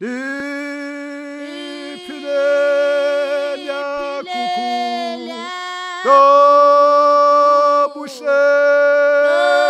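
Zion church choir singing a cappella in harmony, several voices holding long notes together, the sound swelling louder about six seconds in.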